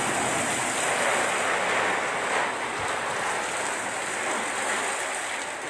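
Steady rushing hiss of water from fire hoses spraying onto a burning house.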